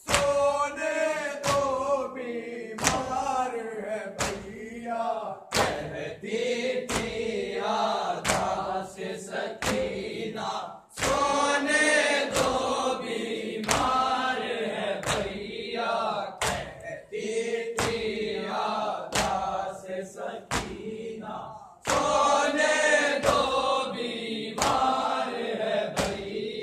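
Group of men chanting a Shia noha (lament) in unison, with a steady beat of hands striking chests in matam, about three strikes every two seconds. The chant pauses briefly twice before starting again.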